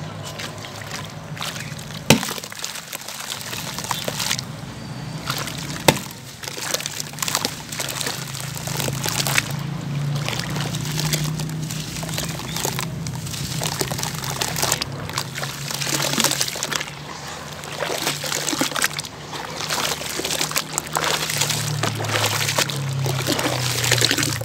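Water sloshing, pouring and trickling in a plastic basin of foamy water as hands stir it and crumble wet sand-cement chunks into it, with many small gritty crackles. Two sharp knocks come about two and six seconds in.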